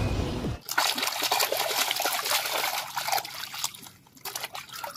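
Music cuts off just after the start, then shallow water splashes and trickles as a plastic toy is dipped and rinsed by hand. The splashing thins out to a few scattered splashes after about three and a half seconds.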